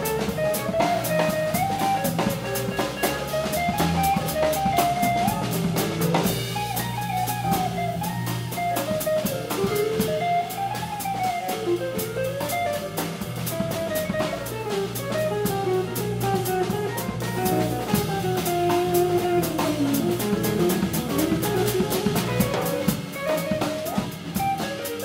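Live jazz-fusion band playing: an electric guitar runs a winding single-note lead line over a busy drum kit with constant cymbal strokes, bass guitar and piano.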